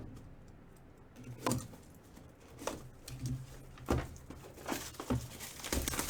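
Trading-card box and packaging being opened and handled: a handful of short, separate rustles and taps, more frequent in the second half.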